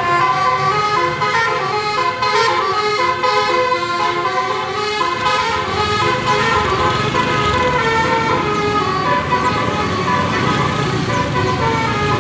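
Bus "telolet" multi-tone musical air horn of the Basuri type, playing a tune: a continuous run of short pitched notes stepping up and down several times a second, over a low rumble.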